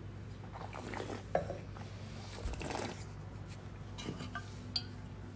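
A person sipping red wine from a stemmed wine glass, with soft sucking and swallowing noises. There is a sharp click about a second in, and a light knock as the glass is set down on the table.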